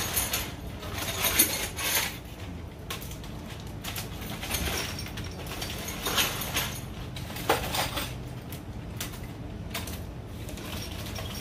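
Packs of metal spoon lures being handled and hung on pegboard hooks: a run of light metallic clinks and clicks with the rustle of plastic packaging, a few knocks louder than the rest.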